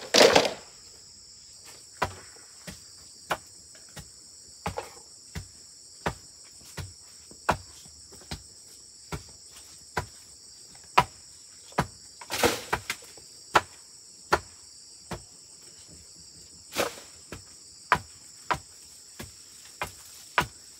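Insects chirring steadily and high-pitched, over regular sharp knocks roughly once a second, with a louder scrape or rustle at the very start, another about midway and a third later on.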